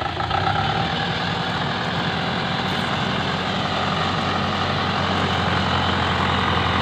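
A heavy vehicle's engine running steadily under load as it pulls up a slope, growing slightly louder.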